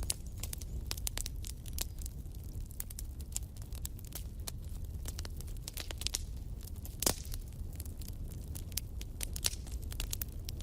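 Wood fire in a fireplace crackling steadily, with many quick sharp snaps over a low rumble of flame and one loud pop about seven seconds in.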